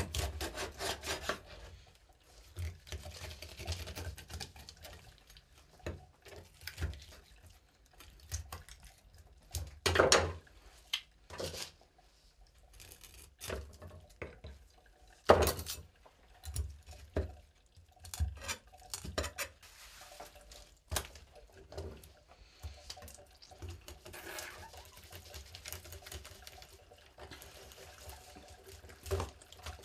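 A kitchen knife cutting and scraping through a trout on a wooden cutting board, with irregular knocks and taps of the blade and fish against the wood. Two louder sharp strikes come about a third and halfway through.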